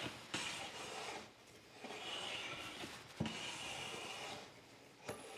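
A metal bench plane taking three smooth, even strokes along a hardwood board, each a hissing slice of about a second, with a knock as the plane is set back about three seconds in. A well-supported blade cutting cleanly without chatter.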